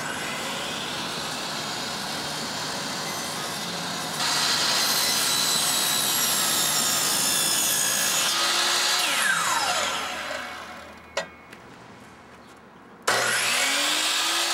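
DeWalt miter saw running and cutting, its motor then winding down with a falling whine. A single click follows, then a quieter stretch, and near the end the motor starts again with a rising whine.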